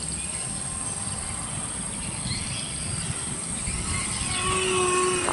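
Micro RC model plane's electric motor and propellers buzzing faintly at a distance over a steady outdoor hiss with a thin high whine. A steadier motor tone comes in and grows a little louder in the last second as the plane draws nearer.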